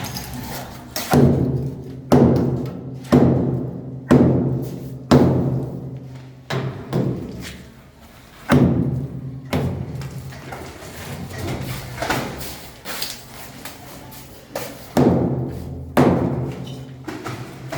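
Heavy thuds landing roughly once a second, each with a short ringing tail, over a steady low hum. The spacing is uneven in places, with gaps of one to two seconds.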